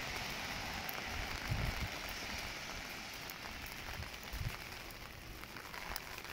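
Heavy rain falling on pavement: a steady hiss of rain with scattered ticks of drops. Two brief low thumps come about a second and a half in and again past the middle.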